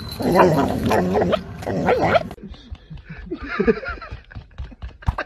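A dog vocalizing, mixed with a person's voice asking it something.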